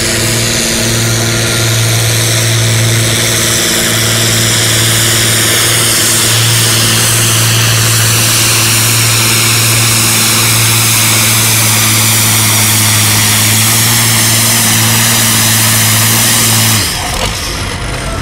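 Farm tractor's diesel engine running flat out under heavy load as it drags a weight-transfer pulling sled, a steady deep note with a high whine that slowly falls in pitch as the pull goes on. About 17 seconds in the engine note drops away sharply as the tractor comes to a standstill.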